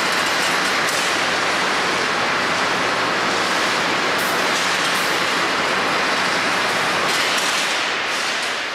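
Eurobend Syntheton 20x4 sheet-metal machine running: a loud, steady hissing machine noise that dies away near the end.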